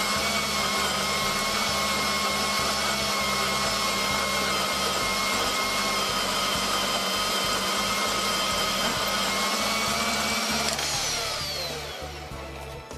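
Femi NG120 portable bandsaw running and cutting through square steel tubing at a miter, a steady whine made of several held tones. About eleven seconds in, once the piece is cut through, the pitch falls and the sound fades as the blade winds down.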